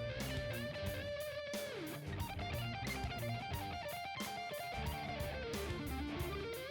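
Background music: an electric guitar with a steady beat and bass, its lead line bending up and down in pitch.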